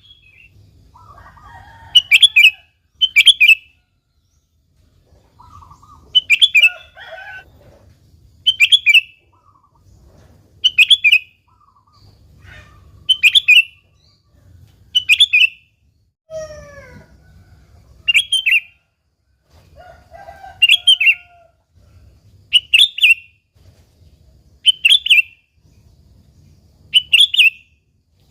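Sooty-headed bulbul (kutilang) calling: a loud, short chirping phrase repeated about every two seconds, with softer, lower warbling notes between.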